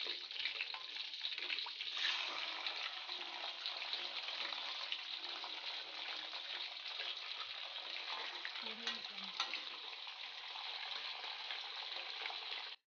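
Tilapia deep-frying in hot oil in a wok: a steady sizzle full of small crackles and pops. It grows a little louder about two seconds in and cuts off abruptly near the end.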